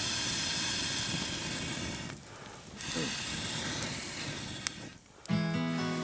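Steady hissing and sizzling from a wood fire grill, broken twice by short lulls, with a few sharp crackles.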